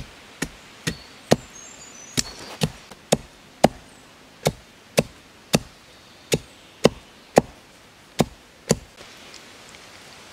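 Machete chopping into thin green saplings: about sixteen sharp chops at roughly two a second, stopping near the end.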